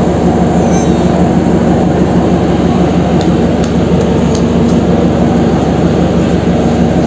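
A train standing at a station platform keeps running, giving a steady, loud, even mechanical drone.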